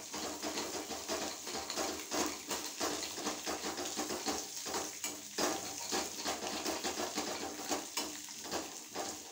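Hot coconut oil sizzling around a tempering of dried red chillies and curry leaves in an aluminium pan, with a metal spoon stirring and scraping against the pan in irregular clicks.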